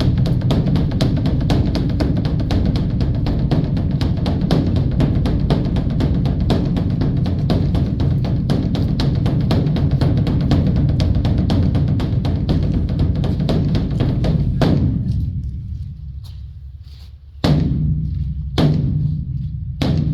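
Large Buddhist temple drum (beopgo) beaten in a fast, continuous run of strokes with a deep booming body. The run breaks off about 15 s in and fades, and then single heavy strokes follow about a second apart.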